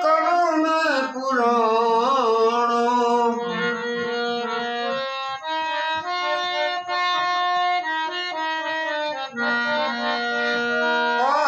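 Gujarati devotional song: a singer's wavering, ornamented line for the first three seconds or so, then a harmonium playing steady held notes that step from pitch to pitch, with the voice coming back in at the very end.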